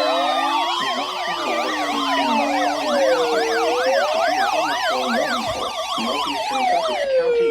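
Several emergency-vehicle sirens sounding together: slow wails rising and falling, with fast yelp patterns layered over them, cutting off near the end.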